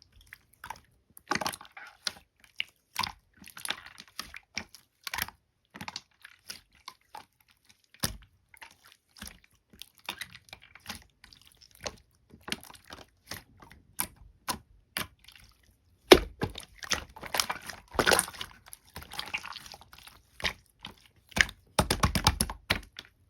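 Slime being squished and pressed by hand: a run of sticky clicks and small wet pops. These come thicker and louder in two clusters, one about two-thirds of the way through and one near the end.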